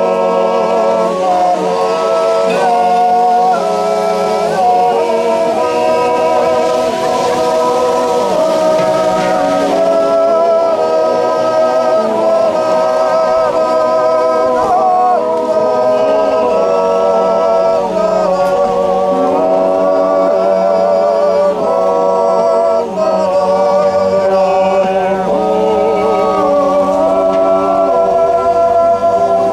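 A group of Silvesterchläuse singing a Zäuerli, a slow wordless Appenzell yodel in several voices, with long held, wavering notes that slide from one pitch to the next.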